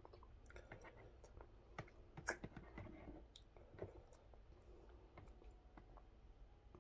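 Faint clicks and taps of metal chopsticks picking food from a plastic tray, with a couple of sharper clicks, the loudest about two seconds in.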